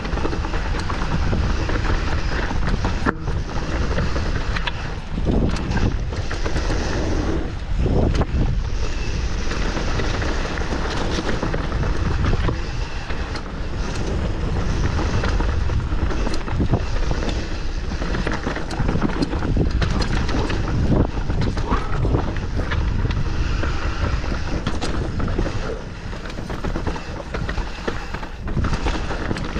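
Mountain bike descending a rough trail at speed: wind buffeting the microphone in a steady low rumble, with tyres crunching over dirt and stones and the bike rattling and knocking over bumps throughout.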